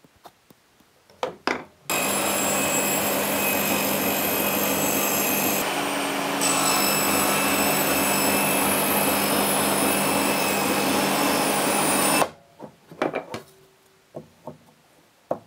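Table saw running and cutting a groove into a wooden drawer side for the drawer bottom. It comes in suddenly about two seconds in, its tone shifts a little about six seconds in, and it stops abruptly about twelve seconds in. There are a few light knocks before and after.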